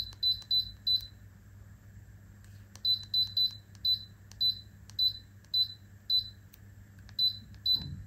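Somogyi Home FKF 59201 wall fan heater's control unit beeping once for each remote-control button press as the timer setting steps up: short high beeps, four in quick succession, a pause of about two seconds, then about eleven more that come further apart toward the end. A steady low hum runs underneath.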